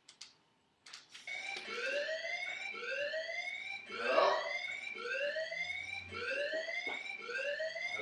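Fire-alarm sound: rising whooping sweeps repeating a little under two times a second, starting about a second in after a couple of faint clicks. A short louder burst cuts across it about four seconds in.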